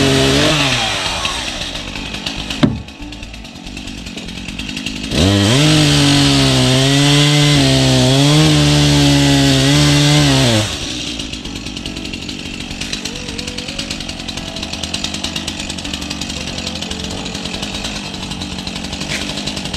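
An engine revs up to high throttle briefly at the start, then again and holds there for about five seconds, its pitch wavering slightly, before dropping back to a lower steady running. A single sharp knock comes about three seconds in.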